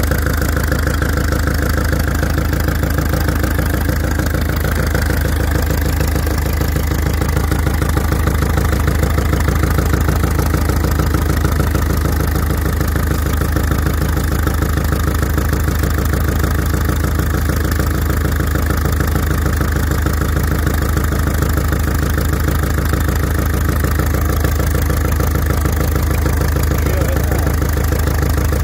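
Citroën 1.6 HDi four-cylinder turbodiesel idling steadily, heard up close, with a fast, even diesel knock.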